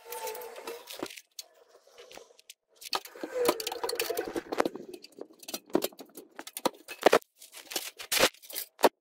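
Clicks, taps and scraping of metal and plastic parts being handled inside a steel computer case. There are two longer stretches of rubbing and scraping, one at the start and one a few seconds in.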